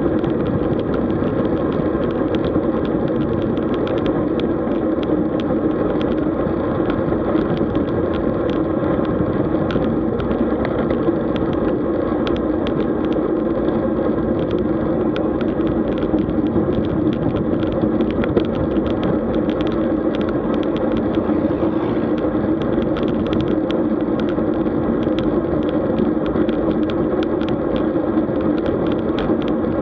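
Road bicycle riding along: a steady rumble of tyre and wind noise with small ticks and rattles.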